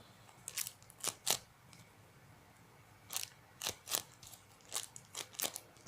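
A homemade squishy being squeezed and handled, giving short crinkly crackles in three little clusters.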